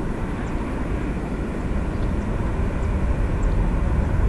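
Boeing 737-300's CFM56 jet engines heard from a distance as the airliner rolls out along the runway after touchdown: a steady low rumble that grows slightly louder near the end.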